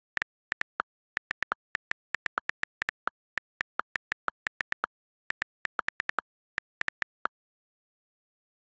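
iPad on-screen keyboard clicks from fast typing, about four to five clicks a second. Most are at one pitch and some are lower, as iOS gives the space bar a different click. The typing stops about seven seconds in.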